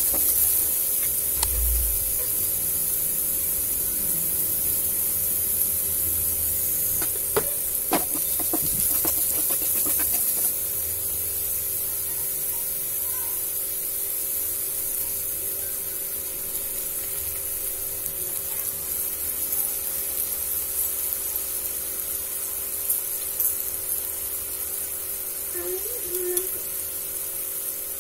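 Chopped onions and green chillies sizzling in oil in a nonstick frying pan, a steady high hiss. A wooden spatula scrapes and taps against the pan in a run of clicks between about 7 and 10 seconds in.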